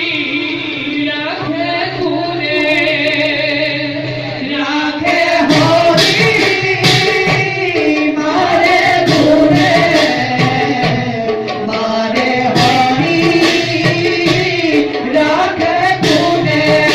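Bhauna gayan-bayan music: voices singing held, wavering notes, with khol drum strokes and cymbals coming in about five seconds in and running on beneath the song.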